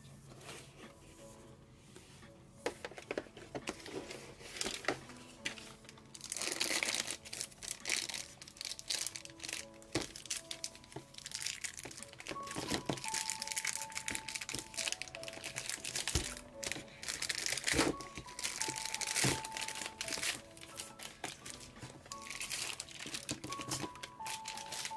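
Plastic wrapping crinkling and tearing in irregular bursts as a monitor light bar is pulled out and unwrapped, starting about a quarter of the way in. Soft lo-fi jazz-hop music plays underneath.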